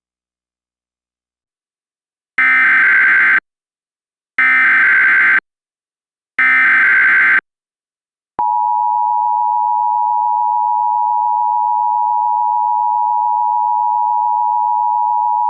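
Emergency Alert System SAME header encoding a tornado warning: three one-second bursts of shrill digital data tones, about two seconds apart, after a couple of seconds of silence. About eight seconds in, the steady two-tone EAS attention signal starts and holds.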